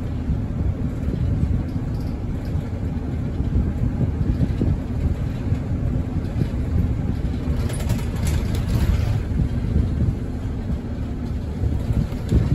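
Cabin of a moving city route bus heard from the front seats: a steady engine drone and road rumble, with a brief hiss about eight seconds in.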